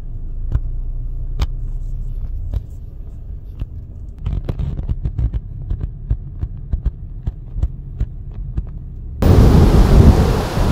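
Low, steady road rumble inside a slowly moving car's cabin, with scattered light clicks and knocks, thickest in the middle. About nine seconds in it cuts to a louder, noisy outdoor rush like wind on the microphone.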